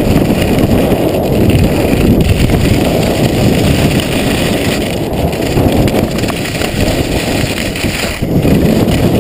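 Loud wind buffeting the microphone of a body-mounted action camera during a fast downhill ski run, over the hiss of skis running on groomed snow.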